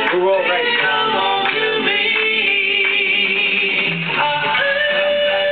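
Doo-wop song performed live, with voices singing over guitar accompaniment; a long note is held from about four and a half seconds in.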